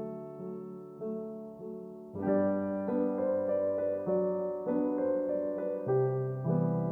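Background piano music: a slow, gentle melody of single notes, growing fuller from about two seconds in.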